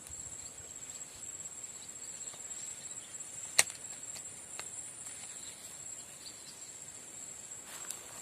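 Steady high-pitched insect chorus, with one sharp click about three and a half seconds in.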